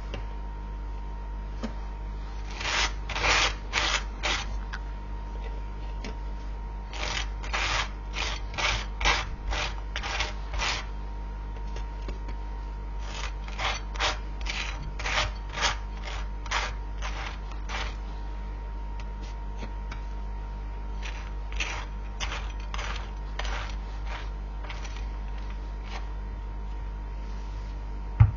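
A knife spreading butter on toast: dry scraping strokes, about three a second, in four runs with pauses between them.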